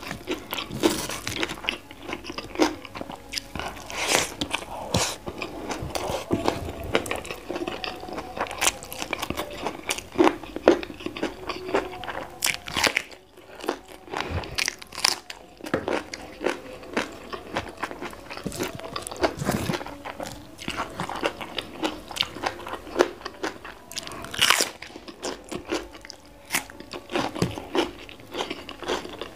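Close-miked eating: repeated crisp crunches and chewing of raw vegetables, including a bite into a small raw purple eggplant about halfway through.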